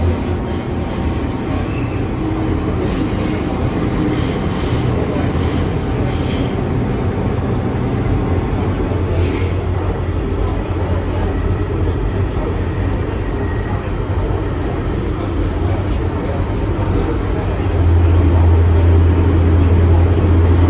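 Hong Kong MTR M-train electric multiple unit running, heard from inside the car: a steady rumble of wheels on track, with brief high wheel squeals a few seconds in. The rumble gets louder near the end.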